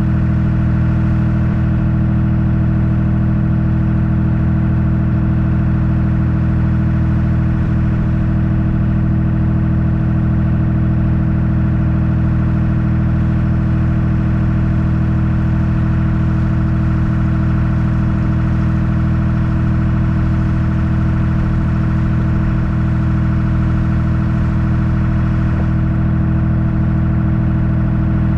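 Small ferry boat's motor running steadily under way, a constant, unchanging engine drone.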